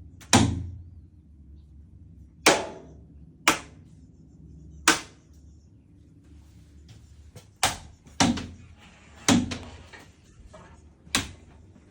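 A small hand broom being banged against a hard surface: about eight sharp knocks at irregular intervals, each with a brief ringing tail.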